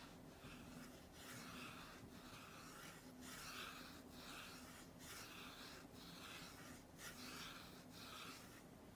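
Faint strokes of a wet watercolour brush rubbing back and forth across watercolour paper, about one soft brushing rush a second.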